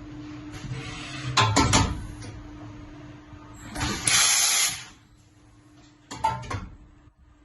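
YCM NMV106A vertical machining center's automatic tool changer cycling over a steady machine hum. A quick cluster of mechanical clacks comes about a second and a half in, then a hiss of air just under a second long about four seconds in, then another quick set of clacks near the end.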